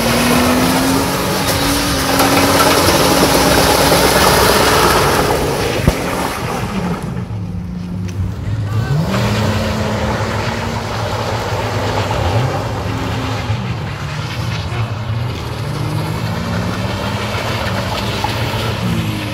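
Car engine revving hard, its pitch rising and falling several times, with a loud rushing noise over the first five or six seconds and a single sharp crack about six seconds in.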